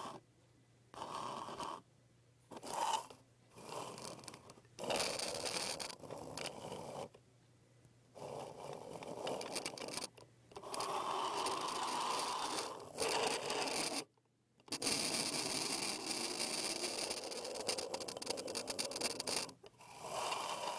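Irregular bursts of scraping and rubbing handling noise on the iPod's own microphone as the device is moved and turned about, some bursts brief and others running several seconds, with short quiet gaps between.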